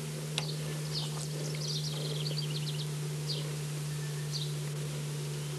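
Birds chirping outdoors: scattered short, high chirps with a quick run of them about two seconds in, over a steady low hum.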